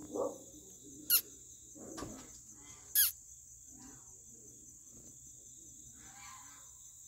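Two loud, short squeaks, each sliding steeply down in pitch, about two seconds apart, over a steady high-pitched drone.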